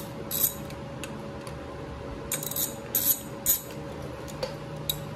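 Hand ratchet and socket backing off the clutch spring nuts on a Harley-Davidson Shovelhead clutch hub: a few short, sharp metallic clicks and clinks at irregular spacing, bunched between about two and three and a half seconds in.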